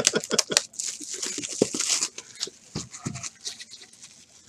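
A man laughing in short rhythmic bursts that stop about half a second in, followed by about a second of hissy rustling and a few light taps from hands moving over the card boxes.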